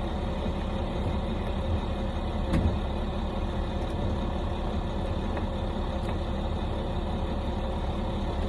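Steady low machine hum, like an engine running, with a few faint clicks.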